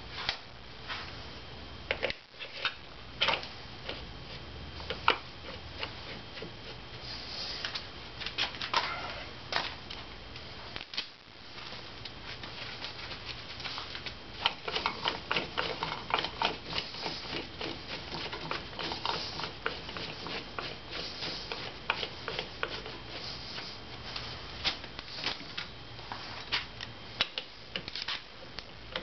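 A hand ratchet clicking in quick runs as a socket spins the compensator sprocket nut down onto a Harley-Davidson crankshaft, after scattered clinks of metal tools and parts being handled.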